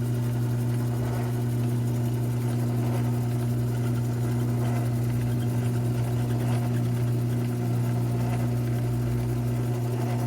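Modified mini lathe, its fractional-horsepower electric motor running with a steady hum while a hole is drilled.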